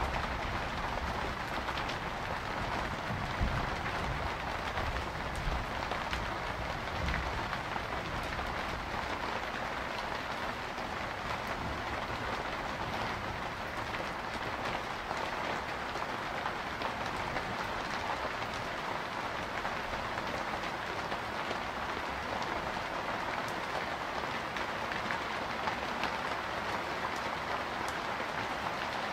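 Steady rain falling in an even hiss, with a low thunder rumble dying away over the first few seconds.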